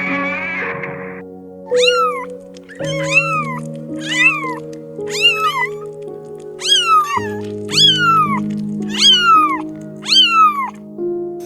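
Domestic cat meowing about eight times in a row, each meow a short call that falls in pitch, over background music with held chords.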